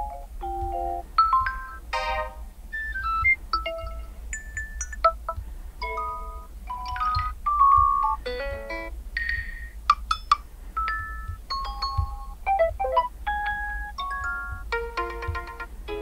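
Huawei Nova 10 Pro preset messaging tones playing through the phone's speaker, one after another as each is selected. Each is a short chime, jingle or mallet-like melody, cut off by the next, a new one every second or less.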